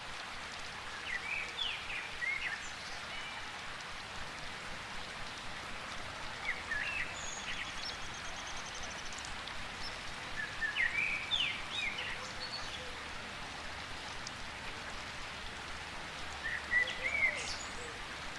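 Steady hiss of rainforest rain with a bird singing the same short whistled phrase four times, about every four to five seconds. A second bird gives a brief high trill near the middle.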